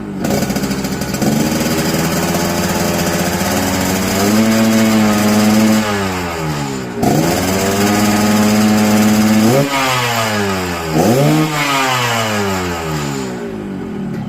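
Yamaha RX-King's two-stroke single-cylinder engine, freshly tuned, being revved: the revs climb about a second in, rise again and are held, drop and are held once more, then two quick throttle blips fall back toward idle near the end.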